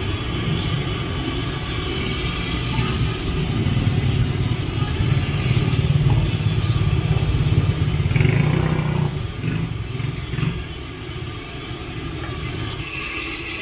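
Motorcycle engine running, building to its loudest in the middle and then dying away about ten seconds in.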